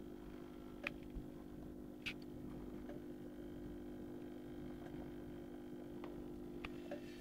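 Aquarium pump humming steadily, with a few faint ticks scattered through it.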